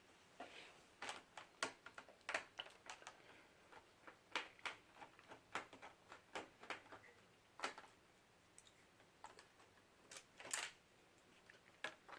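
Faint, irregular clicks and ticks of a small screwdriver turning screws out of a laptop's screen hinges, with light scratching as the screws and plastic parts are handled.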